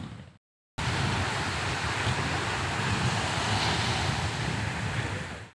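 A steady, even rushing noise that starts abruptly about a second in and cuts off abruptly near the end.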